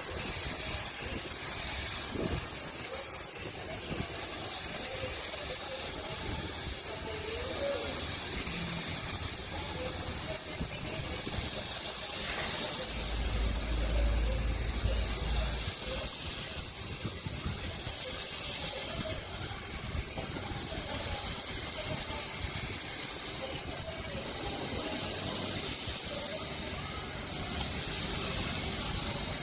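Steady hissing spray, with a brief low rumble about halfway through.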